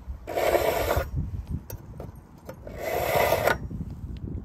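Chef knife blade drawn twice through a handheld carbide V-notch sharpener under heavy pressure, each pull a rasping scrape lasting a little under a second as the carbide shaves metal from the edge. The steel is hard enough that no curls of metal peel off.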